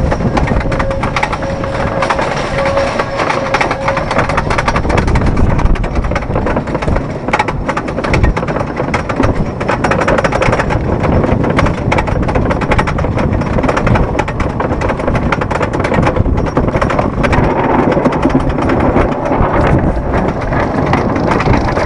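Cedar Point's Mean Streak wooden roller coaster train being hauled up the chain lift hill: the lift chain clattering steadily with a rapid, continuous run of clicks.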